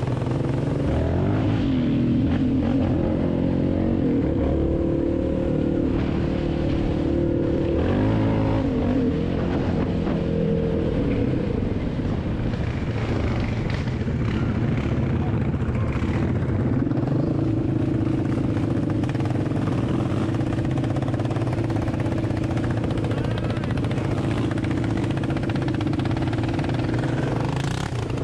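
Sport quad engine running while being ridden, its pitch rising and falling with the throttle.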